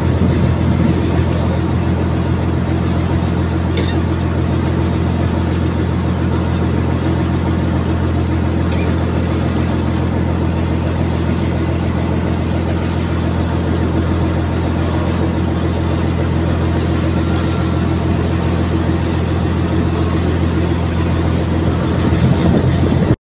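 A small boat's engine running at a steady speed while the boat is under way: a constant low drone that holds one pitch throughout.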